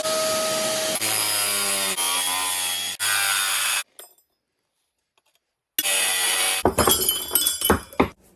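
Vacuum cleaner running in blow mode, its motor whine shifting in pitch from cut to cut, stopping abruptly about four seconds in. After two seconds of silence, a noisy stretch with several sharp knocks and clinks of metal near the end.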